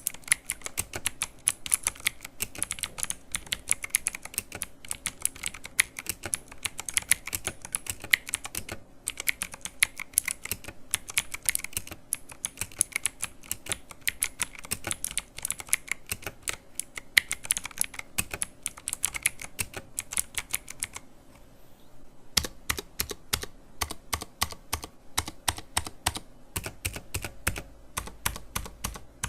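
Redragon K567 Rahu mechanical keyboard with Outemu Blue clicky switches being typed on fast and continuously, each keystroke giving a sharp click. The typing stops for about a second a little past two-thirds of the way through, then resumes.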